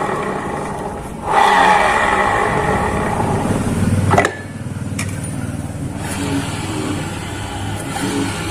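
Honda Vario 125 rear wheel spun by hand with the CVT rear pulley fitted, giving a rough, harsh whir. A spin carried over from before fades about a second in; a second spin runs about three seconds and stops abruptly. The mechanic takes the noise for worn, loose bearings inside the rear pulley.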